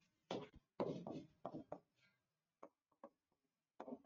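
Stylus writing on an interactive display board: a few soft scrapes, then faint irregular taps and clicks as letters are written.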